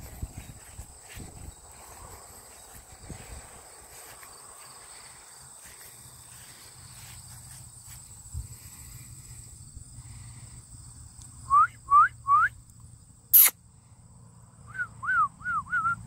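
Puppies whining in short, rising squeaks: three about eleven seconds in and a quick run of them near the end, over faint rustling. A single sharp click falls between the two groups and is the loudest sound.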